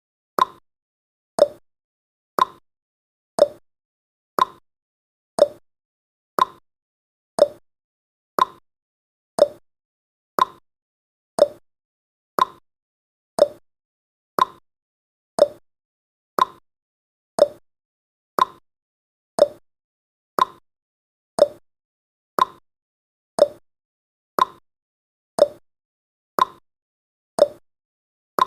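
Clock ticking sound effect: one click each second, alternating a higher tick with a lower tock, marking the seconds of the countdown.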